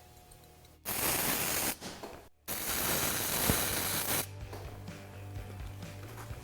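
MIG welding arc crackling in two bursts, the first about a second long and the second almost two, while feeding a thick 1/16-inch wire forged from a bolt. A steady low hum runs underneath.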